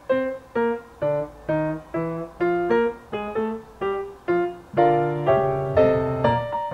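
Background piano music: a light melody of single notes, each starting sharply and fading, about two a second. Fuller chords come in about five seconds in.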